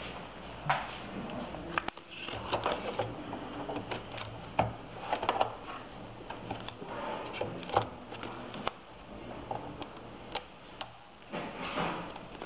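Label roll being handled and seated in the plastic media holders of a Toshiba B-EV4 desktop label printer: irregular plastic clicks and knocks with rustling between them.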